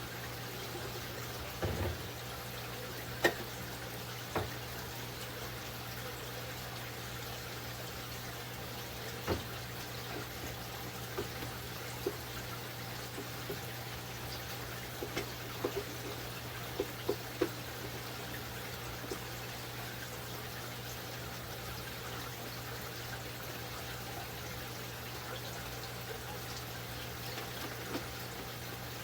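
Scattered light knocks and clacks of condiment bottles and containers being handled and set down on refrigerator shelves, with a small cluster of quick knocks about midway, over a steady low hum and hiss.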